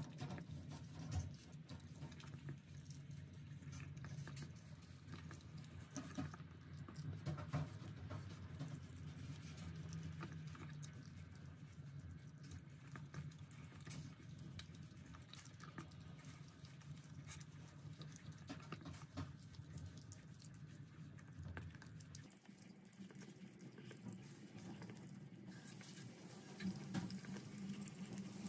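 A puppy eating soft wet dog food from a stainless steel bowl: rapid irregular licking, chewing and small clicks of its mouth against the metal, over a low steady hum.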